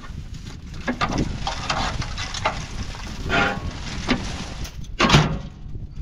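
Corn cobs and crop debris being raked by hand out of a John Deere 9500 combine's rock trap, rattling and knocking down in irregular bursts, the loudest about five seconds in.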